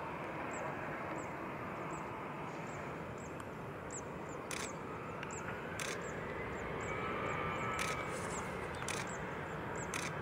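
Boeing 767-300 airliner on low final approach: steady jet engine noise that grows a little louder, with a faint whine rising in pitch around the middle.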